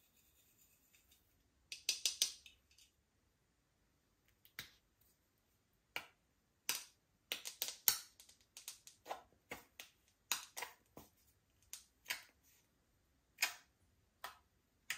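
Slime being mixed by hand, giving sharp, sticky clicks and pops at irregular intervals that begin about two seconds in.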